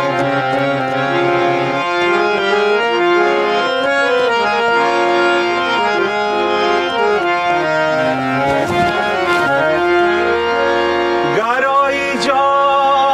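Harmonium playing an instrumental melody interlude in an Afghan song, with sustained reedy notes stepping up and down.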